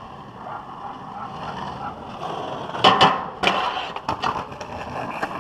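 Skateboard wheels rolling on asphalt, growing louder, then sharp clacks about three seconds in as the board pops up and strikes a flat metal rail, followed by a few more knocks as it rides off the rail and lands.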